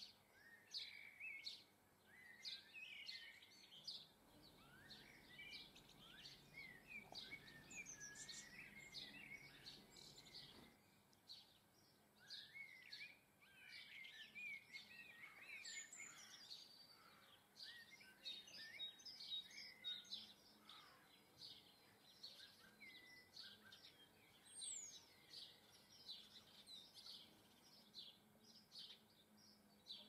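Small garden songbirds twittering, a steady stream of quick high chirps and short trilling phrases, faint. A faint low rumble sits underneath for several seconds near the start and cuts off abruptly.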